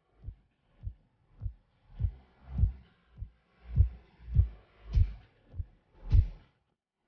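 Steady low thudding beat, a little under two thuds a second, swelling and fading in loudness like a heartbeat pulse in the background soundtrack.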